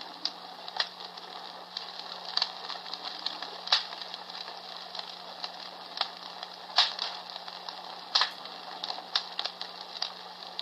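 Comfort Smart Fire Crackler, a palm-sized battery-operated sound machine, playing a crackling-fireplace recording through its small speaker: a steady hiss with irregular sharp pops and crackles. It cuts off suddenly at the very end.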